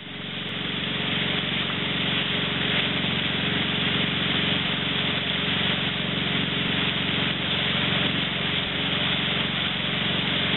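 Boat engine running steadily with a low hum under the rushing water of the churning wake and wind, fading in over the first second.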